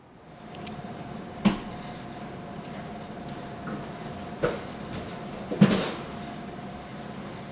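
Three sharp knocks or impacts, about a second and a half, four and a half and five and a half seconds in, the last two loudest, over a faint steady high hum.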